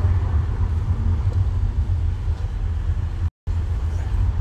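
Low, steady rumble of a car heard from inside the cabin. The sound cuts out completely for a split second about three seconds in.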